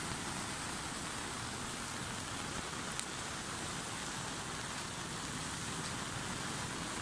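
Steady outdoor background hiss with no distinct source, and one short click about three seconds in.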